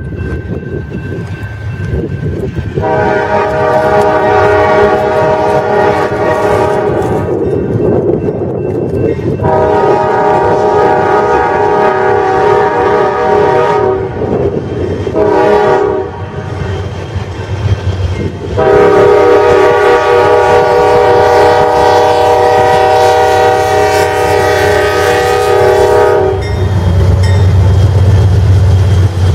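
Locomotive multi-chime air horn sounding the grade-crossing signal, two long blasts, a short one and a final long one, over the rumble of the train, which grows louder near the end.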